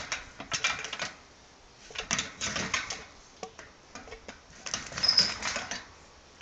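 Sika deer's hooves clattering on the wire-mesh floor of a steel box trap as it moves about inside the cage, in three bouts of rapid clicking and rattling.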